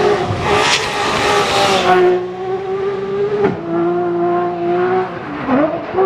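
Peugeot Cosworth rally car engine at full throttle passing close on a gravel stage, with a hiss of gravel and tyre noise over the engine. After about two seconds it is heard from further off, holding high revs with a gear change midway. Near the end a quick lift and re-rev makes a dip and rise in pitch.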